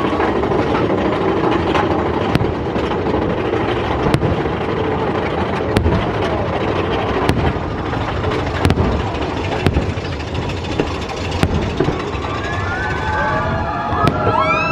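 Roller coaster train rumbling along its track at speed, with a steady rush of wind, and a sharp crack every second or two. Several high sliding tones come in near the end.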